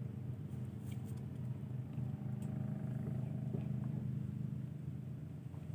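An engine running steadily at constant speed: a low, even drone with its overtones, easing off a little near the end.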